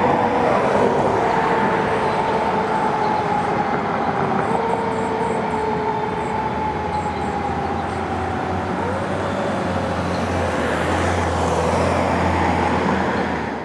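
Fire engine siren wailing, its pitch sliding slowly down, then winding up again about nine seconds in and falling once more, over the noise of passing traffic. The sound cuts off at the end.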